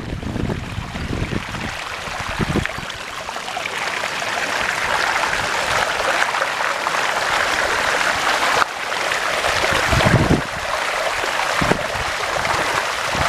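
Floodwater rushing and splashing as a bicycle is pushed through a thigh-deep flooded street, a steady hiss of moving water with a few brief low rumbles.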